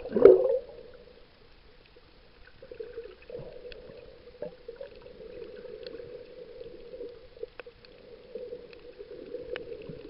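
Underwater sound picked up by a camera held below the surface on a coral reef: a loud, brief gurgling burst right at the start, then a steady muffled hum of moving water with scattered faint clicks.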